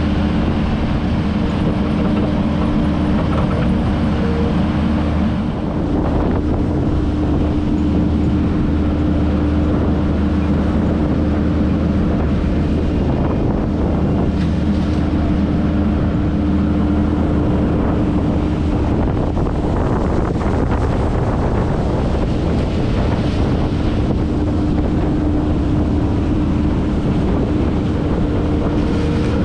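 Kubota SVL 75-2 compact track loader's diesel engine running steadily under load, with a steady whine held throughout.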